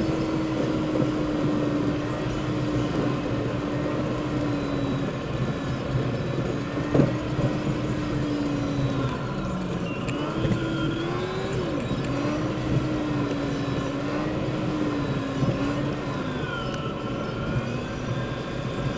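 Car engine and tyre-and-road noise heard from inside the cabin while driving, the engine note dipping and rising with speed and gear changes. A single sharp knock about seven seconds in.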